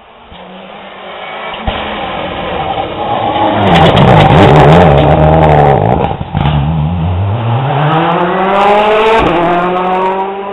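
Rally car passing at speed, its engine revving hard and loudest about four to six seconds in. The engine note drops through the bend, then climbs steadily as the car accelerates away.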